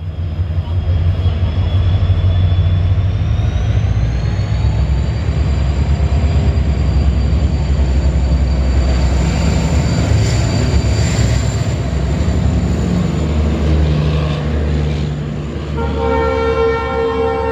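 EMD GT46PAC (WDP4) diesel-electric locomotive running under power as it approaches and passes: a deep engine drone with a high turbocharger whine that rises in pitch over the first few seconds, the 'jet engine' sound of this type. About a second and a half before the end, the horn starts blowing.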